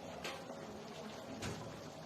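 Creamy chicken gravy cooking in a kadhai over the gas flame, with two short knocks or scrapes of a utensil, about a quarter second and about a second and a half in.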